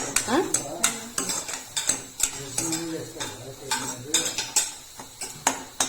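Metal spoon repeatedly clinking and scraping against a cooking pot while stirring, in irregular sharp knocks.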